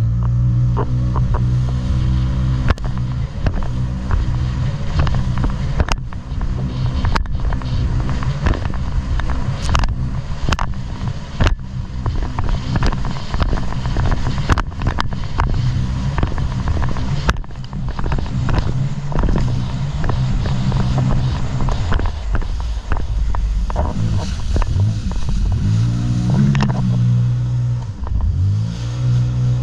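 Jet ski engine running steadily at speed, with repeated sharp knocks as the hull hits the chop. A few seconds before the end the engine drops in pitch, then revs back up.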